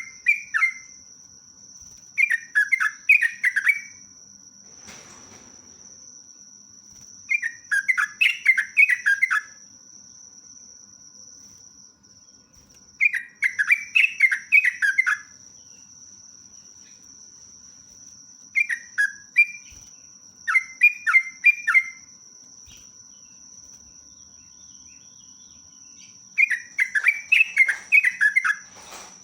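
Yellow-vented bulbul (trucuk) singing its long bubbling warble in repeated phrases of quick notes, each about two seconds long, with pauses of a few seconds between them. A steady high-pitched tone runs underneath throughout.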